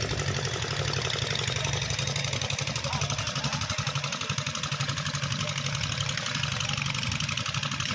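Engine of a generator-driven high-pressure washing pump running steadily at a constant speed.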